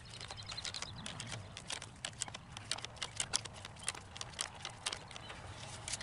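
Sped-up run of irregular sharp clicks and ticks, several a second, as a doubled brace wire on a wood-post fence H-brace is twisted tight with a wooden stick used as a windlass lever.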